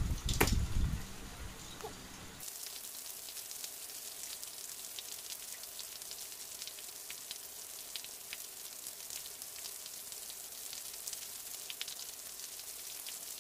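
Steady rain falling on a wet road: an even hiss sprinkled with many small patter ticks, starting at a cut about two seconds in. Before it, a short louder low-pitched noise.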